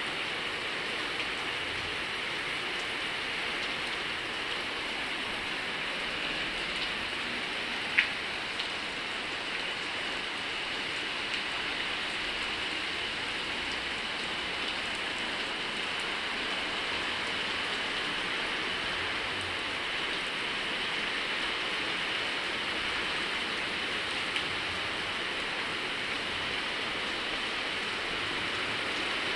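Torrential rain pouring down steadily. One sharp tick stands out about eight seconds in.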